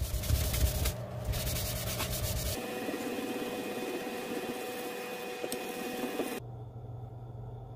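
A grey non-woven abrasive pad rubbed by hand over the wooden surface of a turned root-burl vase: a scratchy rubbing that changes abruptly a few times and is quieter near the end.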